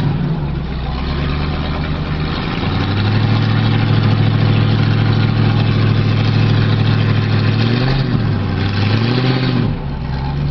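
Off-road 4x4's engine running under load on a trail climb, stepping up to higher steady revs about three seconds in, then revved up and down twice near the end before dropping back to lower revs.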